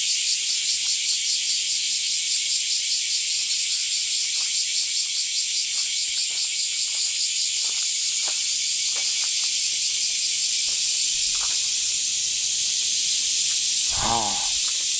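A chorus of cicadas shrilling, loud and steady with a fast pulsing most marked in the first half. Faint footsteps are heard beneath it, and a short voice comes near the end.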